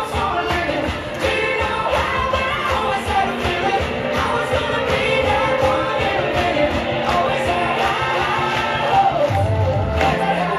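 Children singing a song to pop-style backing music with a steady beat.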